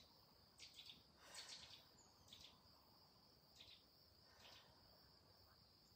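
Near silence, with a faint steady high-pitched insect trill, like crickets, and a few brief faint hisses.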